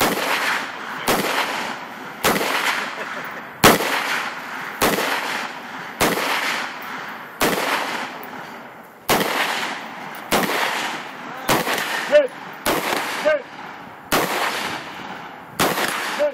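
AR-style semi-automatic rifle fired in single shots at a steady pace of about one a second, each shot followed by a fading echo.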